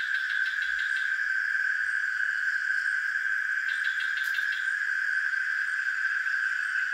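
Night insect chorus: a steady, high-pitched drone. Twice, at the start and a little past halfway, another caller adds about a second of fast pulsed chirping. A single sharp click comes near the end of the second burst.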